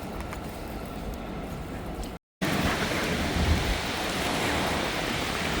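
Steady city street noise of rain and passing traffic, broken by a split-second gap about two seconds in, and louder after it.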